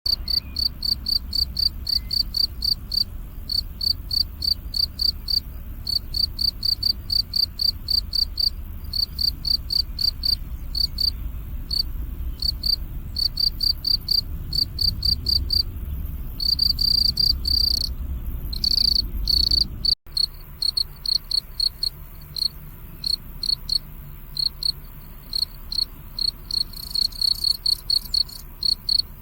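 Crickets chirping in a steady run of short, high chirps, about three a second, with a few longer trills about two-thirds through. A low background rumble sits underneath until a brief cut in the sound, after which the chirping carries on over a quieter background.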